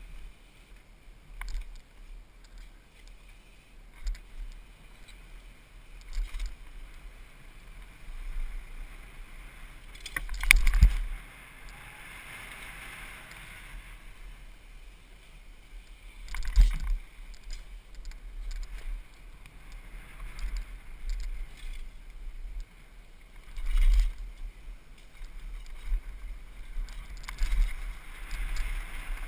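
Mountain bike ridden downhill, heard from a helmet-mounted camera: steady rumble of wind and tyres with the bike rattling over the ground. Sharp knocks from bumps come about ten, seventeen and twenty-four seconds in.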